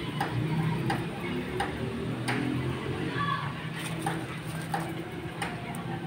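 Steady, evenly spaced ticking, about three ticks every two seconds, over a low murmur.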